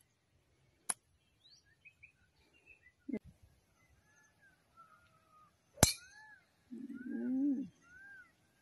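Golf club striking a ball: a sharp click about a second in, and the loudest click, a driver hitting a teed ball, near six seconds, with a duller knock near three seconds. Birds chirp faintly, with repeated arched calls after the drive and a brief low cry about a second later.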